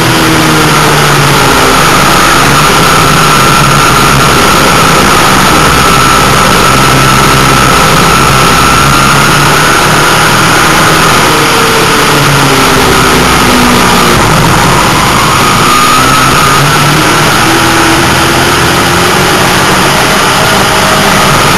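Race car engine at racing speed, heard from inside the cockpit. It is loud and steady, its pitch falling and rising again every few seconds through the laps, over a constant wash of wind and track noise.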